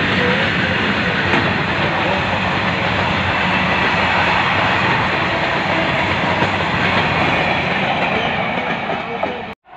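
Freight train wagons rolling past close by: the steady running noise of steel wheels on the rails and wagon bodies rattling. It cuts out abruptly for a moment near the end.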